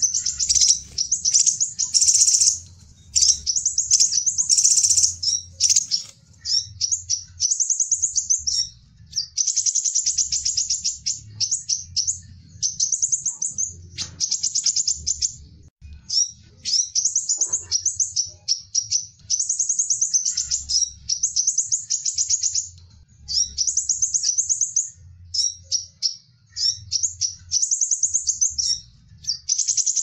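Crimson sunbird calling: rapid trains of high-pitched chittering notes, each phrase about a second long, repeated over and over with short gaps.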